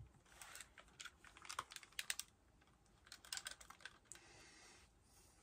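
Faint clicking and tapping on a computer keyboard, a scattered run of clicks over about four seconds, then a short soft rustle as headphones are pulled on.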